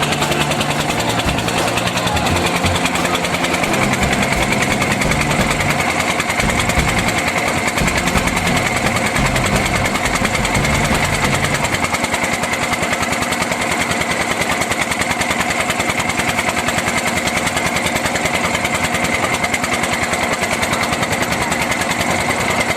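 A small engine running steadily and loudly, with a high whine over it. Its low throb evens out about halfway through.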